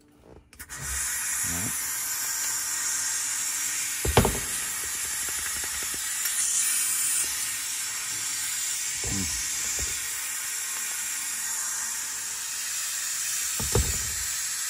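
Compressed air hissing steadily out of an Eaton Fuller air shift knob, starting abruptly about half a second in, with a few knocks from the knob being handled, the loudest about four seconds in. The knob is passing air where it should not, and the owner wonders if it is faulty.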